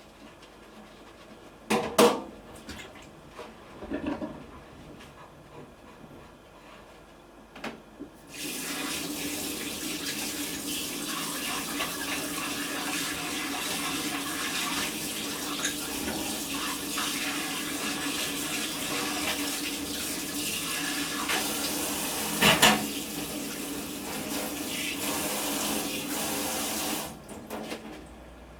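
A water tap runs into a sink, starting about eight seconds in and shutting off near the end, with a steady low hum under the splashing. Before it come a few separate knocks, the loudest about two seconds in, and another sharp knock sounds while the water runs.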